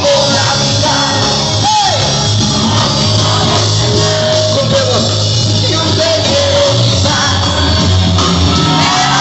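Rock band playing live and loud, with electric guitar and a heavy, steady bass line.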